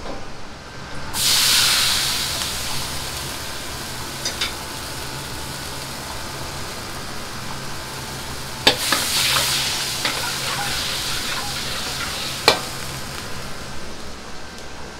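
Liquid ladled into a hot wok hisses and sizzles loudly about a second in, then fades over several seconds. Near the middle a metal ladle clanks sharply against the wok and the sizzling picks up again as it stirs, with one more sharp clank a few seconds later. A steady low rumble from the gas wok burner runs underneath.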